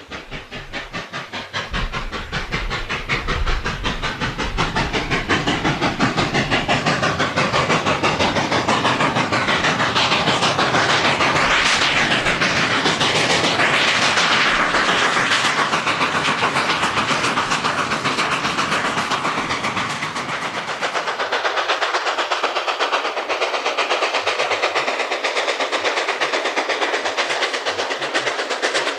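Sound of a steam locomotive running with a freight train: a fast, steady chuffing with rail clatter, swelling in loudness over the first few seconds. About two-thirds of the way through, the low rumble drops away.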